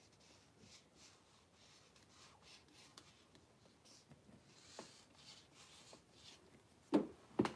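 Faint, irregular scratching and rustling, then two short knocks close together near the end.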